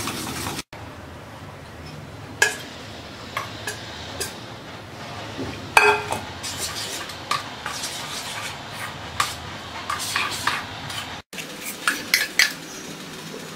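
A metal spoon stirring and clinking against a stainless steel bowl as beaten egg is mixed into a bread-crumb mixture, with sharp clinks at irregular intervals and one louder ringing clink about six seconds in. Near the end, a quick run of clinks as the mixture is scooped out of the bowl into the frying pan.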